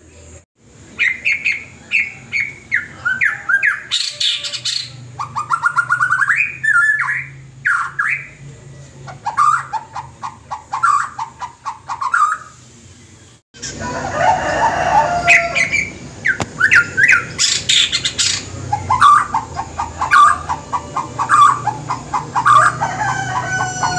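A white-rumped shama sings a varied song of whistles, sweeping chirps and quick runs of repeated notes, with a short break about halfway through. The song mixes in this bird's imitation of a hen cackling after laying an egg.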